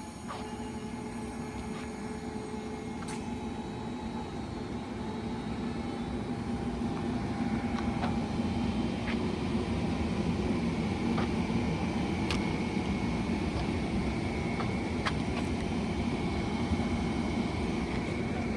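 Amtrak ACS-64 electric locomotive and its train rolling through the station. A steady rumble of wheels on rail, with a steady electric hum and scattered sharp clicks, grows louder about seven seconds in.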